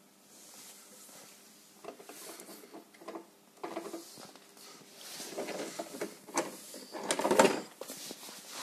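Handling noise: scattered light knocks and rustles as someone moves around with the camera, getting busier in the second half and loudest in a cluster about seven seconds in, over a faint steady hum.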